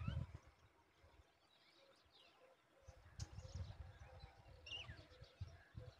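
Faint, scattered bird chirps, a few short calls gliding in pitch, over near silence, with a low irregular rumble in the second half.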